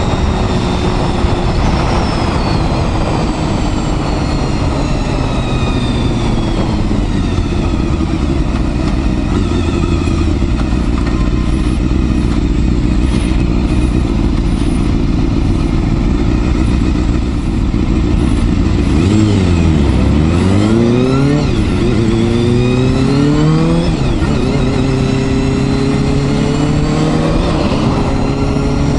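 Honda Hornet 250's inline-four engine under way. It runs steadily with the pitch slowly sinking, then about two-thirds of the way through the revs fall sharply and climb again in steps as the bike accelerates up through the gears.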